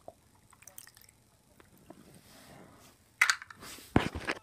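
Faint rustling and small clicks of handling, then two loud bursts of knocking and rustling about three and four seconds in.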